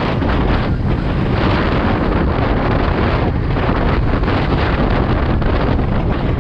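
Wind blasting across the microphone of a camera on a road bike travelling at about 46 km/h: a loud, steady rush with no let-up.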